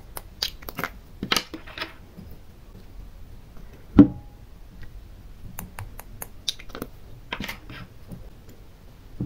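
Small plastic glitter jars being handled: scattered light clicks and taps in two clusters, with one much louder knock about four seconds in.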